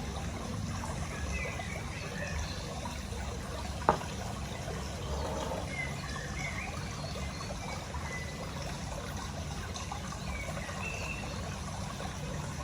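Steady background noise like trickling water, with faint short chirps and one sharp click about four seconds in.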